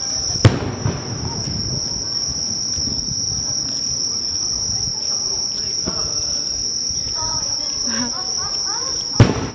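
Firework shells bursting with sharp bangs, once about half a second in and again near the end, each followed by a rumble. Between them insects chirr in a steady high drone.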